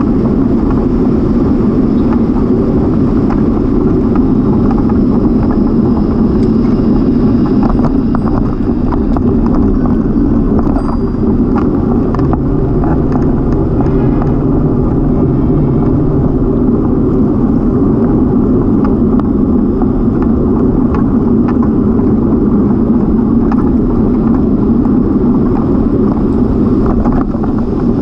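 Steady rush of wind on the camera's microphone and tyre noise while cycling, with scattered small knocks from bumps in the path.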